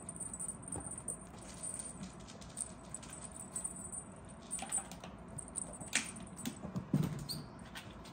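Kittens playing: light scratches, taps and scrabbling of small paws pouncing at a feather wand toy, with a sharp click about six seconds in and a soft thump about seven seconds in.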